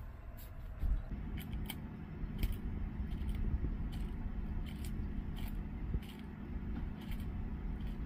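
A tegu crunching a quail egg in its jaws: irregular sharp cracks and clicks of breaking shell, about two a second, over a steady low hum.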